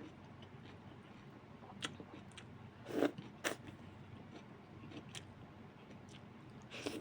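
Quiet eating sounds: a handful of scattered short clicks and taps, the loudest pair about three seconds in, over a faint steady hum.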